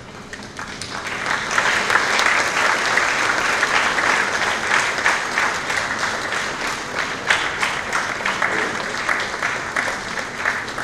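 Audience applauding, many hands clapping at once. The applause swells about a second in, then slowly tapers off toward the end.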